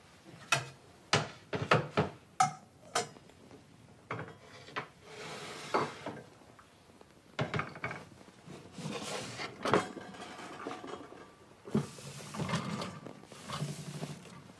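Metal chalice and altar vessels being handled and wiped with a cloth: a quick run of sharp knocks and clinks in the first few seconds, then softer cloth rubbing and rustling with a few more knocks.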